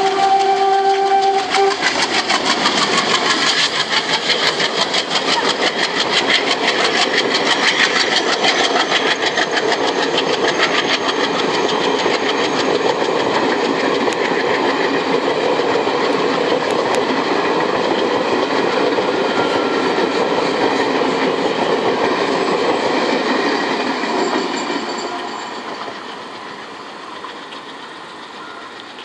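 A WDG3A diesel locomotive's horn sounds a steady blast that ends about two seconds in. Then a long passenger train rolls past with a rapid clickety-clack of wheels over rail joints, fading after about 25 seconds as the train moves away.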